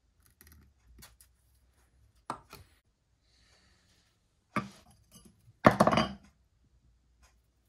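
Hand tools and a metal plate being handled and set down on a wooden workbench: a few separate knocks, then a louder, ringing clatter near the end as a screwdriver is laid down and the plate is moved.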